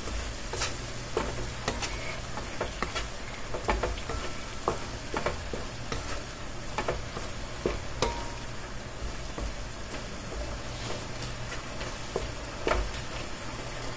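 Meat and sauce sizzling steadily in a nonstick wok while a wooden spatula stirs it, with irregular scrapes and knocks of the spatula against the pan.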